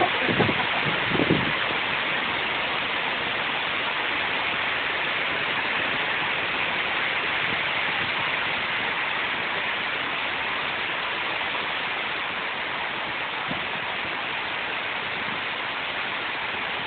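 Heavy rain falling, a dense steady hiss of rain on the ground and street.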